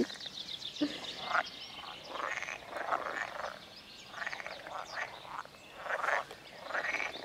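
A chorus of frogs calling in a breeding pond: overlapping pulsed croaks from several males, repeating about once or twice a second. The speaker takes them for common (grass) frogs.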